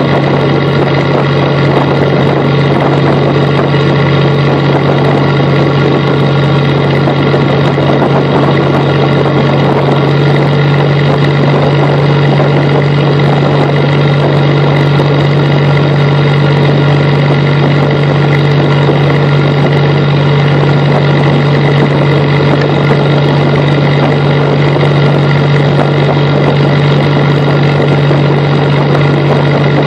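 Commercial fishing boat's engine running steadily under way, a constant low drone with a strong hum that does not change.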